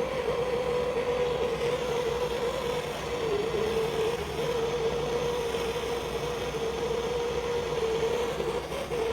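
Gas blowtorch flame burning steadily, a rushing hiss with a steady humming tone in it, as a 22 mm copper fitting is heated for soldering.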